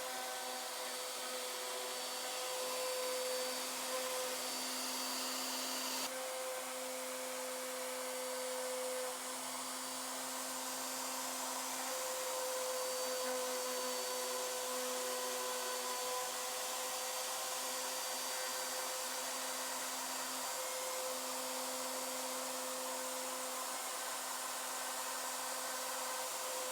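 CNC router spindle running and cutting into wood: a steady whine over a hiss of cutting noise, with a couple of steady tones that drop out and come back every few seconds as the machine moves.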